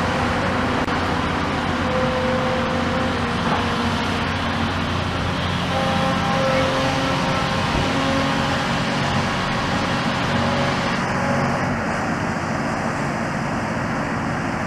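Hyundai Robex 220LC-9A tracked excavator's diesel engine running steadily, its pitch shifting a little now and then.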